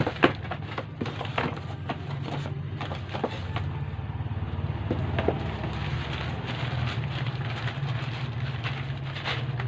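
Packaging rustling and crinkling as a multi-effects pedal is unwrapped and pulled from its box: quick crackles, thickest in the first few seconds and sparser after. A steady low hum runs underneath.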